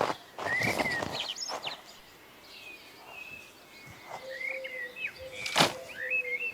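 Small birds chirping in short, repeated calls, with a few soft thumps in the first two seconds and one sharp knock about two-thirds of the way through.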